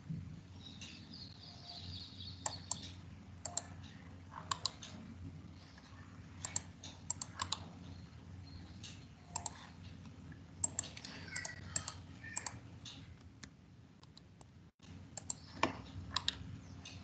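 Irregular clicks of a computer mouse and keyboard, often in quick pairs or triples, heard through a video-call microphone over a steady low hum.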